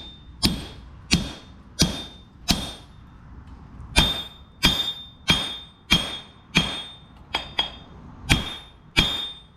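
Hand hammer striking steel on an anvil while forging an axe head: a steady run of blows, about one and a half a second, each with a high ring. A pause of about a second and a half falls near a third of the way in before the hammering resumes.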